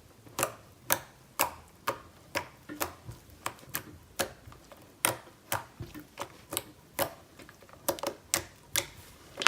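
A run of sharp clicks, about two a second, some coming in quick pairs.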